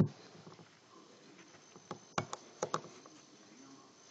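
Small sharp clicks and taps of handling an opened Galaxy Nexus phone and its screws during reassembly: one crisp click at the start, then a quick run of about three clicks a little over two seconds in.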